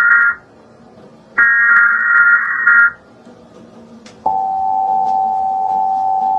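Emergency Alert System broadcast: a screeching digital header burst ends, a second identical burst sounds for about a second and a half, and about four seconds in the steady two-tone EAS attention signal begins and holds.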